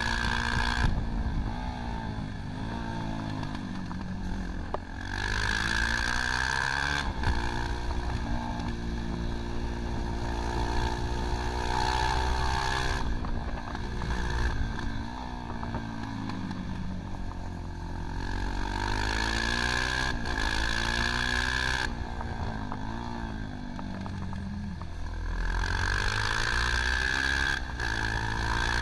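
Motorcycle engine at racing speed, repeatedly revving up and falling back through gear changes and corners, heard from on board, with wind rushing over the microphone at times.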